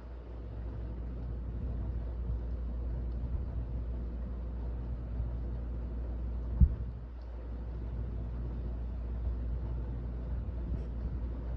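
Steady low background rumble, with one short thump about six and a half seconds in.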